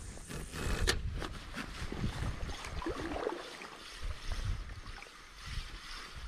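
Water lapping with wind rumbling on the microphone, and a sharp click about a second in.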